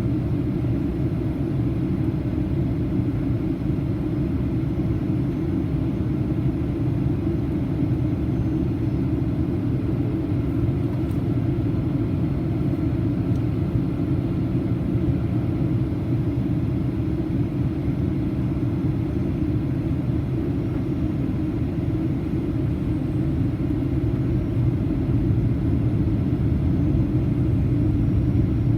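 Boeing 737-800 cabin noise: a steady low rumble of the jet engines and air rushing past the fuselage, heard from inside the cabin, rising slightly near the end.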